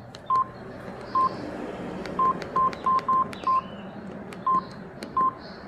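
Samsung SGH-D600 mobile phone's keypad beeps: nine short beeps at one pitch, irregularly spaced, as its keys are pressed while stepping through the menus.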